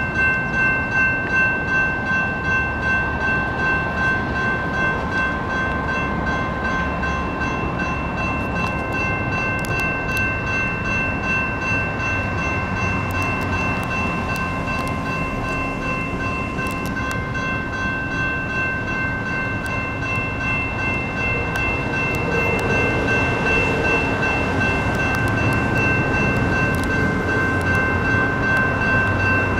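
GS Type 2 electronic crossing bells ringing steadily at an activated light rail crossing, a constant high tone, with the rumble of a SACRT CAF light rail train passing over the crossing. The train grows louder in the last several seconds.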